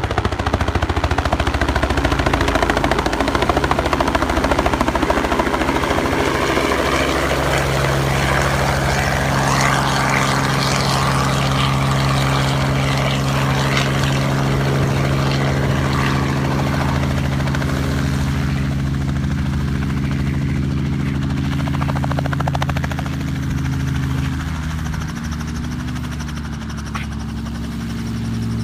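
Small two-blade helicopter coming in to land: rotor beating and engine running loud, settling into a steady low hum while it hovers, then quieter once it sits down on its skids near the end.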